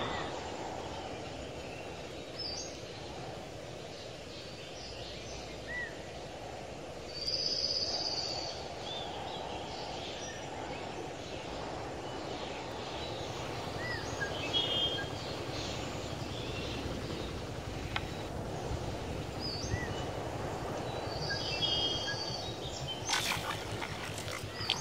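Steady outdoor background hiss with a bird calling several times in short, repeated phrases. Near the end comes a sharp splashing as a hooked fish thrashes at the water's surface.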